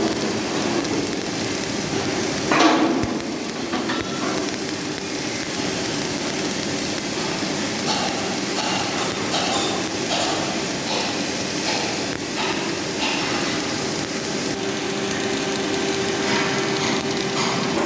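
CO2 (MIG) welding arc running steadily on a butt joint, a continuous crackle over a steady hum, with one louder brief burst about two and a half seconds in.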